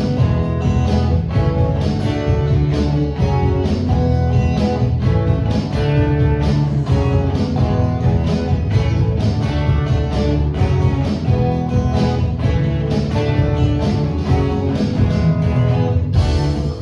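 Worship band music led by strummed guitar, with a steady rhythm, stopping near the end.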